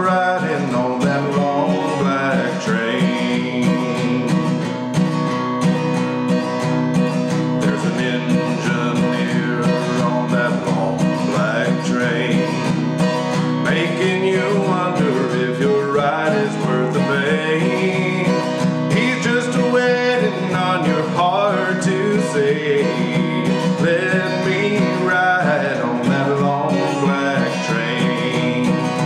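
A man singing a country song while strumming an acoustic guitar in a steady rhythm.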